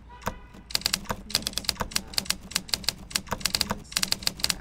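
Simulated manual-typewriter key clacks from the Hanx Writer iPhone app as letters are typed, a fast, uneven run of sharp clicks with a short pause near the start.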